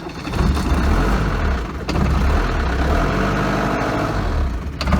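Rover SD1 2400 SD Turbo's VM four-cylinder turbo diesel engine running steadily just after being started, with no unusual rattle or knock.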